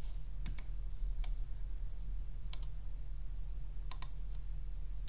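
Scattered clicks of computer mouse buttons and keys, about seven in all, some in quick pairs, over a steady low hum.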